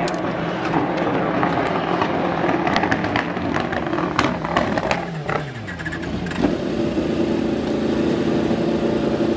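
A motor vehicle engine passes close by, its pitch falling about five seconds in, then an engine runs steadily. Scattered clicks and clatter are heard before it.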